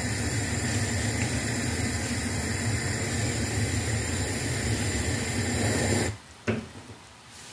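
Gas hob burner running with a steady hiss under a pot of milk tea foaming up at the boil. The hiss cuts off suddenly about six seconds in as the burner is turned off, and a single click follows.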